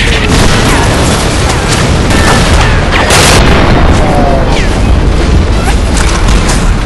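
Battle sound effects for an action film: a continuous deep booming rumble of explosions with scattered sharp gunfire cracks, the loudest crack about three seconds in, and a few short falling whistles.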